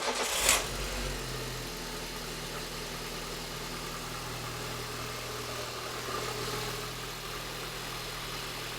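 Lada Kalina's four-cylinder petrol engine running just after catching on its first start since being reassembled. The revs sit a little higher for the first second or two, then settle into a steady idle.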